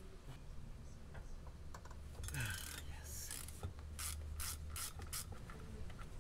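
Ratchet clicking in several short runs, starting a little over two seconds in and stopping around five seconds, over a low steady hum.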